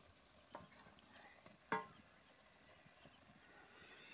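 Near silence broken by two faint knocks of a wooden spatula against a steel karahi: a small one about half a second in and a louder one near the middle with a brief metallic ring.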